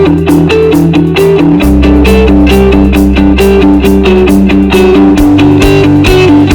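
Background music of plucked guitar over a steady bass line and a regular beat; the bass note changes twice.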